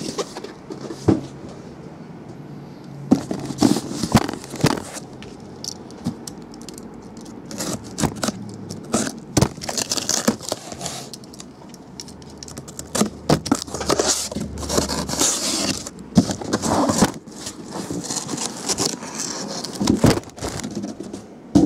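Taped cardboard case being handled and opened: irregular scrapes, crackles and sharp clicks, with a few longer stretches of packing tape and cardboard tearing.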